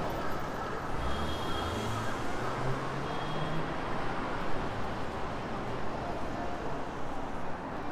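City street traffic going past, a steady wash of road noise with a vehicle engine's low hum in the first half.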